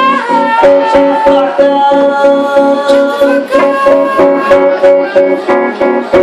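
Guitar music: quick, even strumming under a held, pitched note that slides down in the first second or so and then holds steady.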